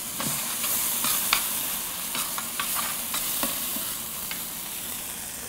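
Tomato puree and spices sizzling in a hot stainless steel sauté pan as they are stirred, a metal spoon scraping and clicking against the pan now and then.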